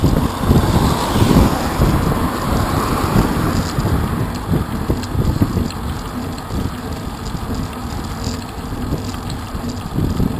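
Wind rumbling on a bicycle-mounted camera's microphone as the bike rides along a road, with a car driving past in the first few seconds.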